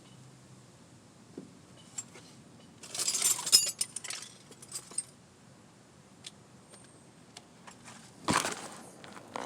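Small metal tools clinking and scraping against a steering column's lock plate and snap ring as the ring is pried off: a jangling run of clinks about three seconds in, scattered light ticks, and one louder metal clatter near the end.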